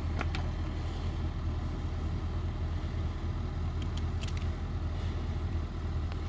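Range Rover Sport's engine running at low revs as it crawls over a rocky trail: a steady low hum, with a few faint clicks.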